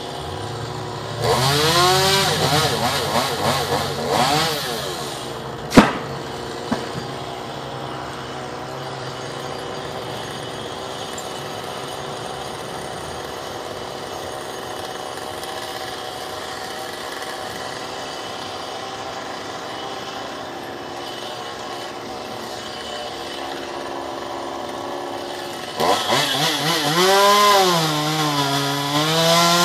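Chainsaw engine idling steadily, revved hard with its pitch rising and falling for a few seconds near the start and again near the end. A single sharp knock comes just after the first rev.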